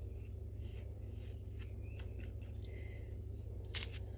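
Faint soft strokes and dabs of a silicone pastry brush spreading egg wash over risen kulich dough, with a brighter tick just before the end, over a steady low hum.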